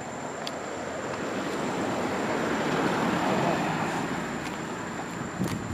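An SUV driving past on a paved road, its tyre and engine noise swelling to a peak about three seconds in and then fading as it moves away.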